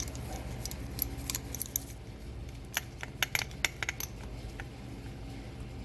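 Light metallic clicks and clinks of tools and small carburettor parts being handled on a workbench, bunched together in the middle, over a steady low hum.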